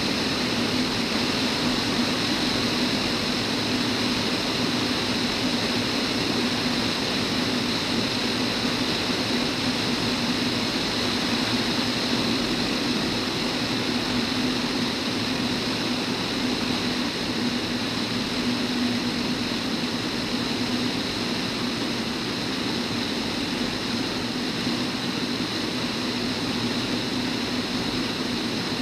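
Van's RV-10 single-engine piston aircraft in flight: engine and propeller droning steadily, mixed with the hiss of air rushing past the airframe.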